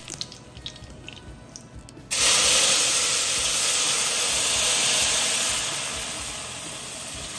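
Watery blended salsa verde poured into hot oil in a pot, setting off a sudden loud hissing sizzle about two seconds in that slowly dies down. Before it, only a faint sizzle of the oil.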